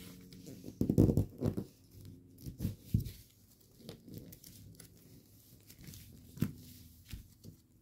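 Gold foil origami paper crinkling and crackling as fingers fold and crease it, in uneven spells; the loudest come about a second in and again around three seconds in.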